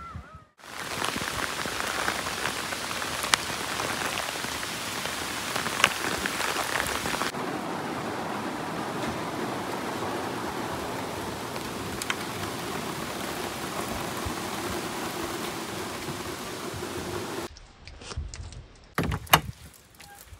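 Heavy downpour of rain falling steadily, with a few sharp drip taps standing out. It cuts off abruptly near the end, leaving a much quieter stretch with a few scattered knocks.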